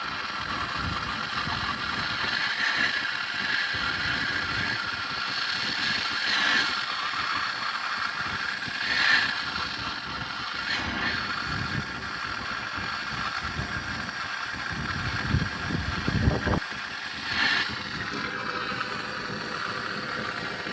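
Torch flame burning steadily, heating a can of 30-weight oil with a timing chain soaking in it. The low rumble cuts off suddenly about sixteen seconds in, while a steady hiss carries on.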